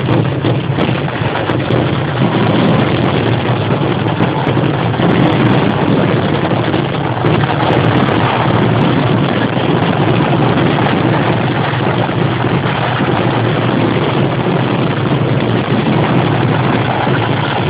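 Kerala temple fireworks (vedikettu) in a dense, continuous barrage, the rapid-fire explosions merging into one steady, loud din with no pause.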